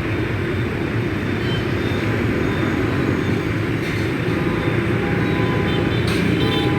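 Steady street traffic noise: engines running and vehicles passing, with a low rumble throughout and faint thin tones coming in near the end.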